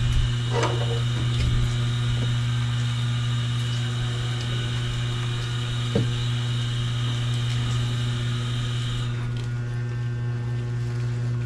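A steady low machine hum with a high whine over it that stops about nine seconds in, and a single light knock about six seconds in.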